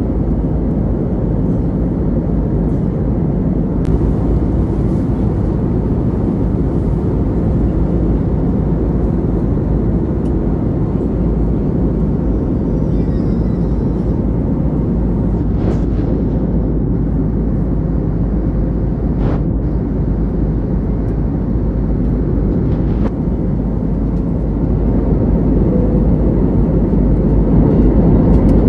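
Airbus A321neo cabin noise heard from a window seat: a steady, deep rumble of engines and airflow, growing somewhat louder near the end.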